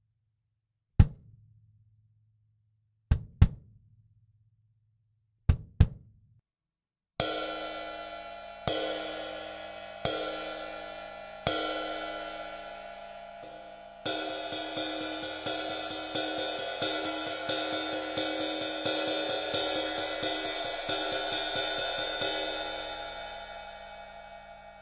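Kick drum hit once, then twice in two quick double hits, with a short low boom after each. Then a ride cymbal is struck four times with a long ring, then played in a quick, even pattern that stops and rings away near the end.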